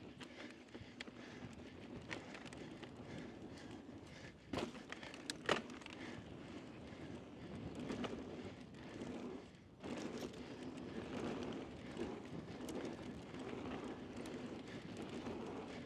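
Mountain bike rolling fast down a dusty dirt trail: a steady rush of tyre and trail noise with scattered rattles and clicks from the bike. Two sharp knocks stand out, about four and a half and five and a half seconds in. The noise drops away briefly just before ten seconds in, then comes back.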